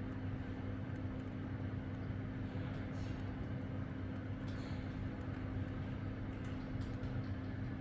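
Steady low mechanical hum with a held low tone, with a few faint clicks near the middle.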